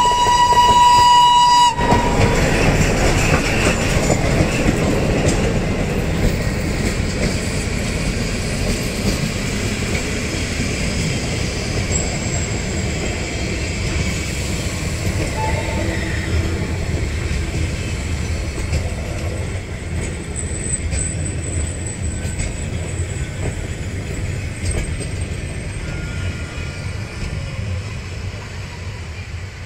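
A locomotive horn blares a held note that cuts off about two seconds in. Then comes the steady rumble and wheel clatter of a heritage train rolling past close by, hauled by a diesel locomotive with a steam locomotive coupled behind. The rumble fades slightly toward the end.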